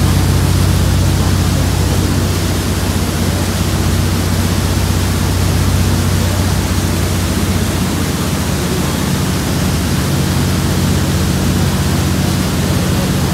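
Motorboat under way at speed: a loud, steady rush of wind and churning wake water, with a low engine drone underneath that fades somewhat in the middle and comes back near the end.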